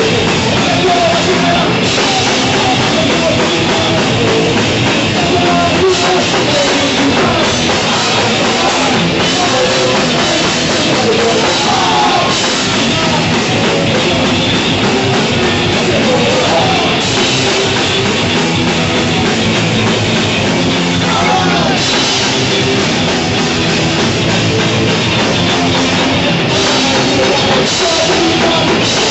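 Live punk rock band playing loud and unbroken: electric guitar over a drum kit.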